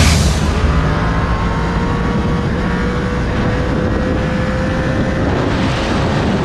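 Yamaha FZ-10 motorcycle's crossplane inline-four running at road speed, its engine note rising slowly as it gently accelerates, with wind rushing over the microphone.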